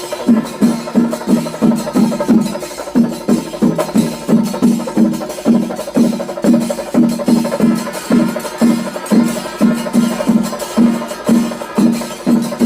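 Kerala chenda melam percussion ensemble playing a steady, evenly repeating beat, about two to three strokes a second, the drums ringing with a clear low pitch over clashing hand cymbals.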